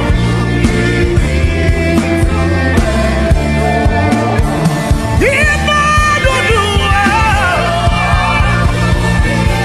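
Gospel worship music with sustained low chords and a singing voice carrying a melodic line, most clearly from about five seconds in.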